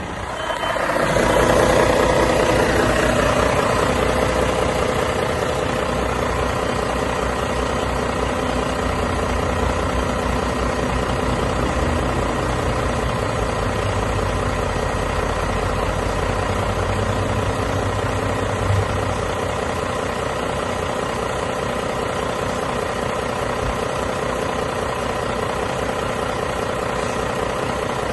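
Renault T480 truck's six-cylinder diesel engine starting up about a second in, running up briefly, then settling into a steady idle.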